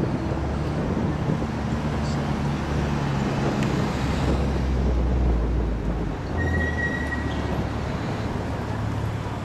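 Street traffic: cars driving past close by, their engine hum swelling and loudest about four to five seconds in. A brief thin high tone sounds about six and a half seconds in.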